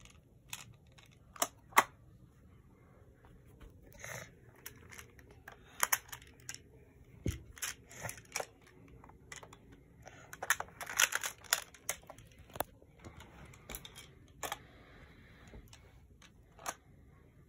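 Plastic Picasso Tiles magnetic building tiles clicking and clacking as they are picked up and snapped together. The light taps are irregular, with a busier run about eleven seconds in.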